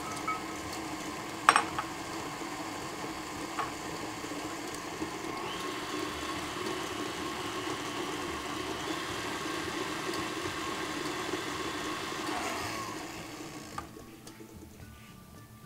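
Electric stand mixer running with its paddle beating a cake batter of creamed margarine, sugar and eggs, a steady motor hum. A sharp click about a second and a half in; the motor's pitch steps up around five seconds in, then winds down and stops near the end.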